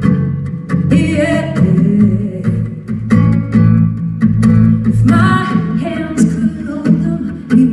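Live pop music: a female voice singing over a band, with guitar and sharp, regular beats.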